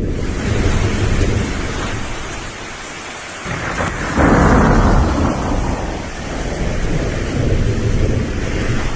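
Typhoon wind and heavy rain, gusting up and down, with the strongest surge about four seconds in.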